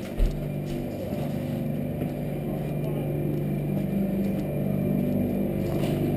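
Steady hum of an outdoor refrigeration condensing unit and its compressor running. A single thump comes about a quarter of a second in.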